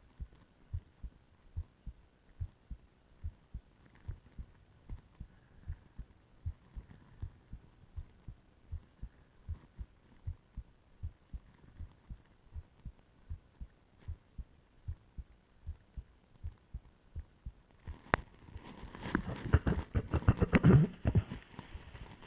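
Human heartbeat heard through a stethoscope: a steady run of low thumps during a held breath. About 18 s in, a louder, noisier rubbing sound covers the beats for several seconds.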